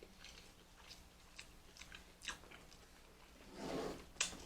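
A person chewing and biting food close to the microphone, with many small wet mouth clicks and smacks. A louder patch comes about three and a half seconds in, followed by one sharp smack.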